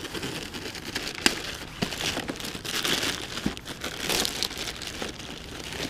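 Plastic courier mailer bag being cut and torn open by hand, the plastic crinkling and rustling unevenly, with a few sharp crackles.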